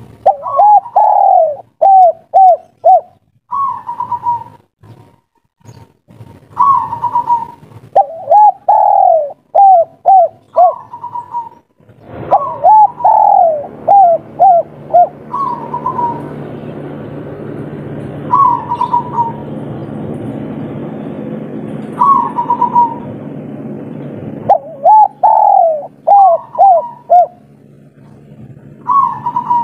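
Spotted dove cooing its three-note 'kuk 3' song, repeated about every few seconds. Each phrase is a higher opening coo, then a longer falling coo and three short coos, with single higher coos in between. From about twelve seconds in until about twenty-four seconds, a steady low rumble runs underneath.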